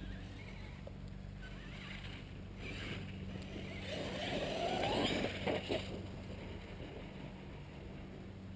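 HPI Savage Flux HP 1/8-scale brushless electric RC monster truck running on 6S LiPo across grass, its motor and tyres growing louder about four seconds in with a rising high whine, then a few sharp knocks before it fades again.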